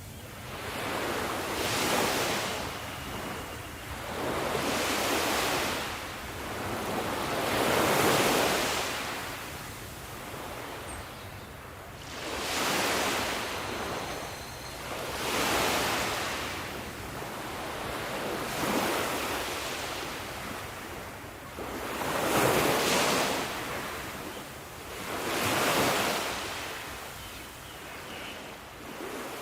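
Sea waves surging, a fresh swell of surf every two to four seconds, each one rising and then fading away.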